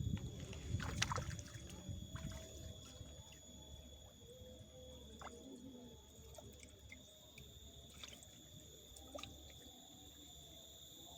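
Insects singing a steady high drone, with scattered clicks and knocks and a low rumble in the first couple of seconds.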